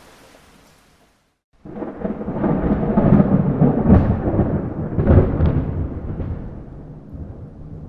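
Rain fades out into a brief silence, then a long peal of thunder rumbles in with two sharper cracks in the middle and slowly dies away.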